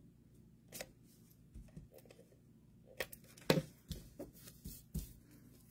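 A few quiet, scattered clicks and taps of cardstock being handled as adhesive is put on the end tabs of a paper strip, the loudest tap about three and a half seconds in.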